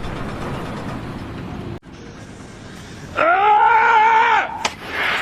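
A faint steady hiss that cuts off abruptly, then one long high-pitched cry, scream-like, held for about a second and a half and followed by a sharp click.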